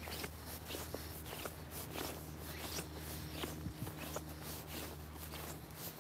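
Footsteps of a person walking, about two steps a second, over a steady low hum.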